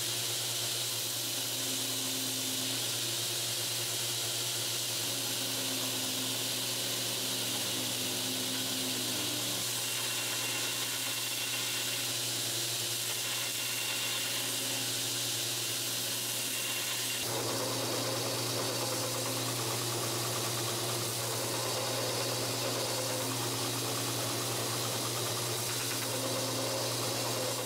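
2x72 belt grinder running steadily, with a constant motor hum and the hiss of the abrasive belt as a wooden knife handle and its steel tang are ground against it. The grinding sound changes abruptly about seventeen seconds in.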